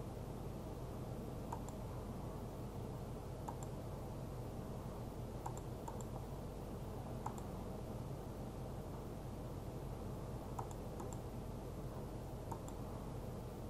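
Sharp clicks at a computer, one every second or two with some in quick pairs, over a steady low hum.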